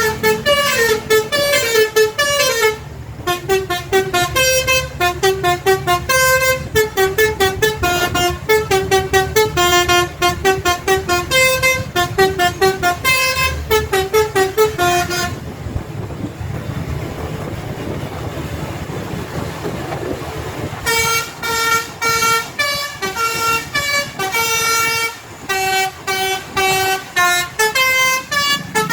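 A bus's basuri telolet horn plays a rapid tune of short notes stepping up and down. The notes break off for about five seconds midway, leaving only a steady low rumble, then start again.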